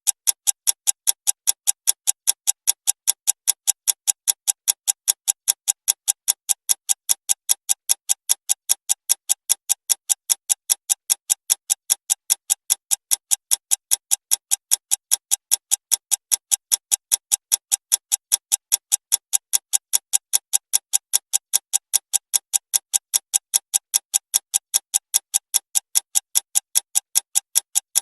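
Fast clock ticking, about four sharp, bright ticks a second in a perfectly even beat.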